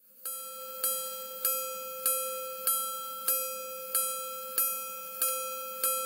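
Jaquet Droz Bird Repeater minute repeater chiming: a hammer strikes a single gong about nine times at an even pace, roughly one and a half strikes a second, each note ringing on and fading before the next, the way a repeater counts out the hours.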